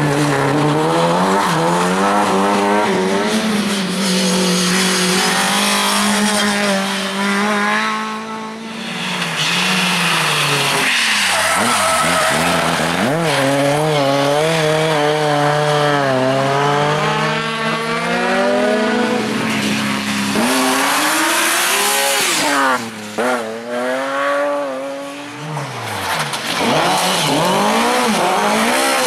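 Rally car engines revving hard, the pitch climbing through the gears and dropping on each lift-off, with tyre squeal and skidding as the cars slide through the corners. The engines drop away twice and then pick up again.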